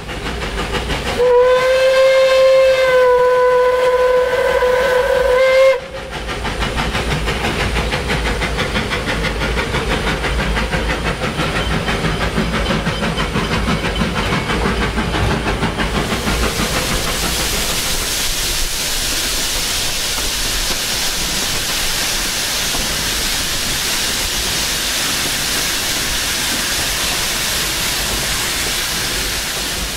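Narrow-gauge steam locomotive's whistle sounding one long steady blast of about four and a half seconds, heard from the cab. The engine then runs on with a steady clattering rush of motion and steam that turns hissier about halfway through.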